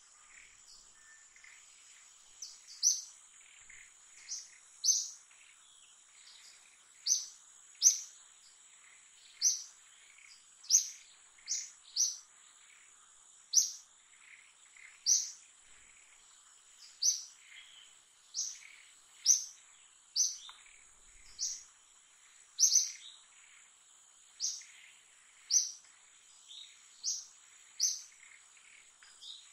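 A bird calling over and over, one short high chirp about every second, starting a couple of seconds in, over a steady high insect drone.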